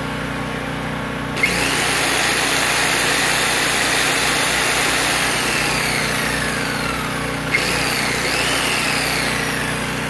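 A corded jigsaw is switched on about a second and a half in, runs for about six seconds and is switched off, drawing its load from a Predator 4000 generator. Under it the generator's engine runs steadily with a low hum.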